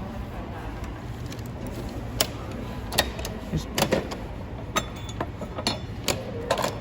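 Clicks and knocks of a coin-operated toy vending machine being worked by hand, a string of separate sharp clicks over a steady low hum.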